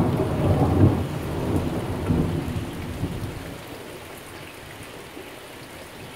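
Steady rain falling, with a low rumble of thunder that starts loud and fades away over about four seconds.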